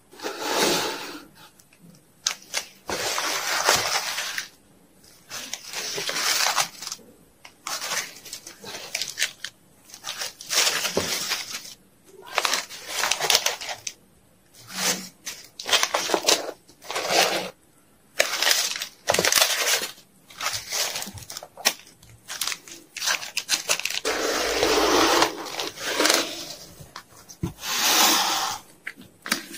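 Packaging being handled during order packing: irregular bursts of crinkling and rustling, each from a moment to about two seconds long, with a longer stretch about 24 seconds in.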